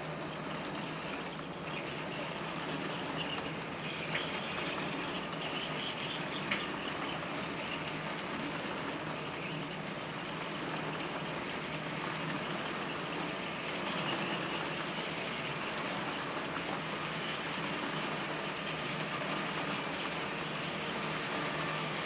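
H0-scale model railway wagons rolling past close by: a steady rolling rumble of metal wheels on the track with a high, wavering squeal over it.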